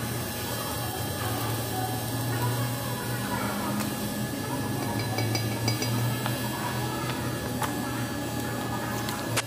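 Steady low electrical hum of workshop equipment, with scattered light metallic clinks and ticks.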